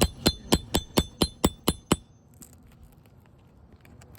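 A hammer tapping a metal nail puller about ten times in quick, even succession, each strike leaving a short metallic ring, to work out a roofing nail in an asphalt shingle. The tapping stops about two seconds in, leaving only faint small clicks.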